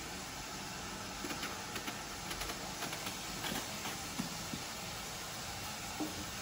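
An eggplant being peeled by hand: a run of light scrapes and clicks as the skin is stripped off, over a steady background hiss.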